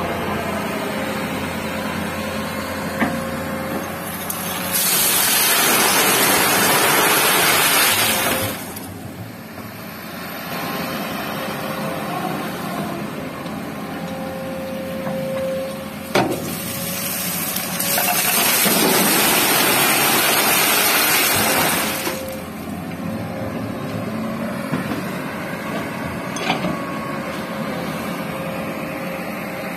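Komatsu hydraulic excavator's diesel engine running steadily while it twice dumps bucketloads of river gravel into a steel dump-truck bed. Each pour is a loud rushing rattle of stones lasting about four seconds, and there is a sharp knock between the two.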